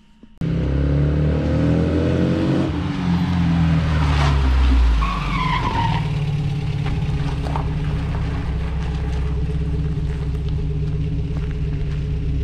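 Vintage open sports car's engine: the note rises as it accelerates, then falls as it slows, with a brief high descending squeal about five seconds in. It then settles into a steady idle.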